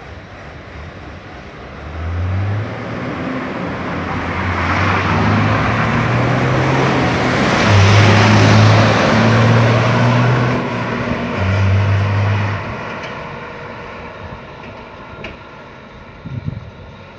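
A car drives past on the road: tyre noise and engine hum build over several seconds, peak about 8 seconds in and fade away, with the engine note stepping up and down in pitch as it goes.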